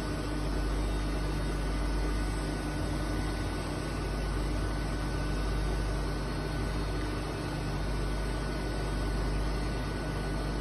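DMG Mori DMC 80 U duoBLOCK five-axis machining center running, heard through its closed enclosure door, with coolant spraying from the spindle head onto the workpiece: a steady low hum and hiss with a faint constant whine.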